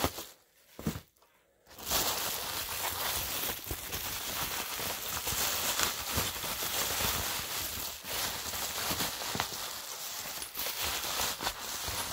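Bubble wrap being pulled and unwrapped by hand: a continuous crinkling plastic rustle with small crackles, starting after a brief near-silent moment near the start.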